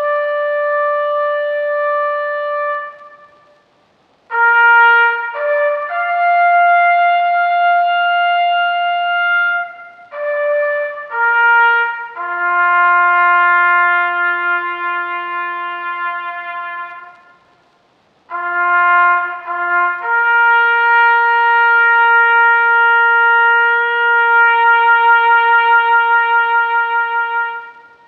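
Trumpet playing a held note, then three short phrases separated by brief pauses. Each phrase has a few quick notes that settle onto a long sustained note, and the last note wavers slightly before it stops.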